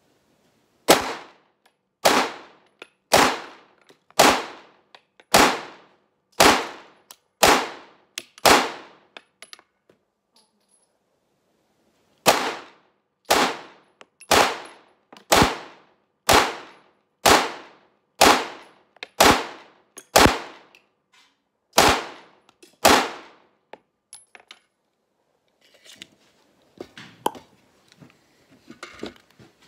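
Polymer80 Glock-pattern 9mm pistol firing steady single shots about a second apart, each with a short ringing tail. There are two strings, about eight shots and then about eleven, with a pause of a few seconds between them. Near the end come faint clicks and rattles as the pistol is handled.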